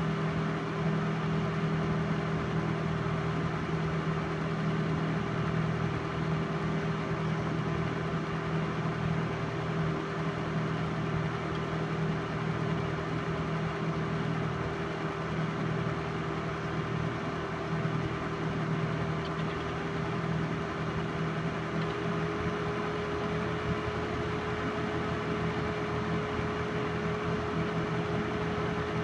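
Steady motor hum and whirr of a running film projector, with a constant whine held throughout.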